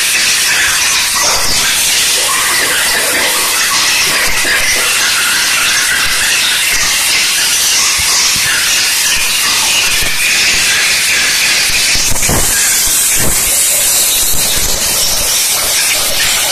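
High-pressure steam jet from a steam-cleaner gun hissing steadily as it blasts an engine cylinder head. A few short pops come through about twelve to fourteen seconds in.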